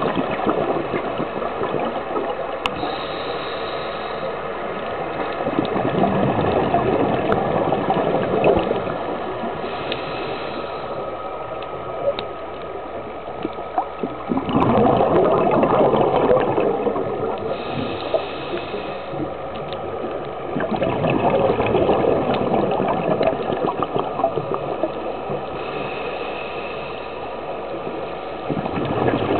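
Scuba regulator breathing heard underwater: bubbling bursts of exhaled air lasting two to four seconds, about every seven seconds. A thin hiss of each breath drawn in comes a few seconds before each burst, with faint scattered clicks throughout.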